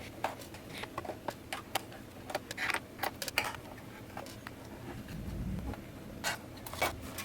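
Light, irregular clicks and taps of a small screwdriver working out the bottom-case screws of a MacBook Pro A1502, with a short low thud about five seconds in.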